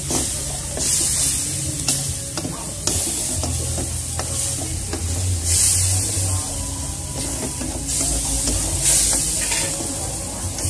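Spatula stirring and scraping a thick spice paste sizzling in a wok, the sizzle swelling in louder bursts every couple of seconds as the paste is turned, over a low steady hum.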